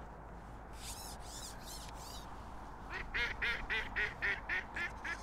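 A duck quacking a quick run of about ten quacks, roughly four a second, starting about three seconds in. A few high, thin chirps come just before, about a second in.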